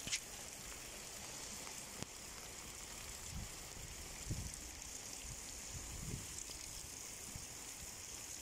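Rain falling on wet, flooded ground: a faint steady hiss, with a few soft low thumps.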